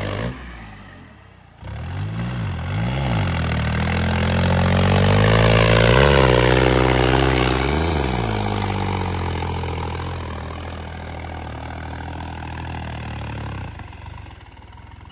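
Tractor diesel engine working in deep mud, revving up and down several times. It drops away briefly near the start, is loudest around the middle, and fades near the end.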